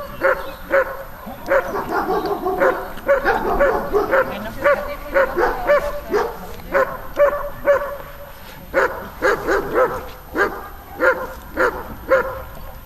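Dog barking repeatedly, about two to three barks a second, with a short pause about two-thirds of the way through.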